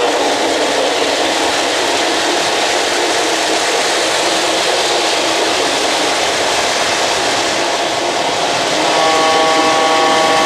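O-gauge model trains rolling along three-rail track, a steady whirring rumble of wheels and motors. A steady chord of several tones comes in about nine seconds in and holds.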